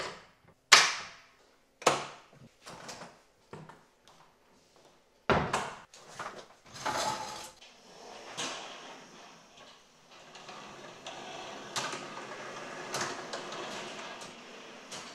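A door's metal latch and lock clacking sharply as the door is locked, loudest about a second in. A scatter of further knocks and clicks follows, then a soft steady noise with a couple of clicks in the second half.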